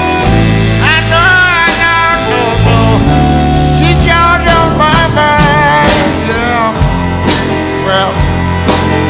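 Background music: a song with a singer over a steady drum beat.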